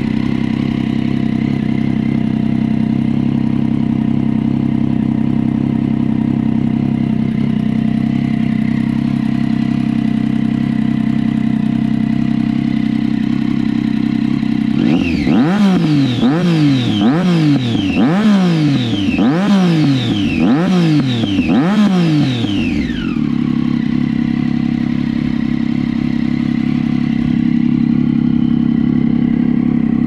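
Triumph Daytona 675's inline three-cylinder engine, very loud through an SC Project replica exhaust with a custom baffle, idling steadily. About halfway through comes a run of about eight quick throttle blips, roughly one a second, each rev rising and falling, before it settles back to idle.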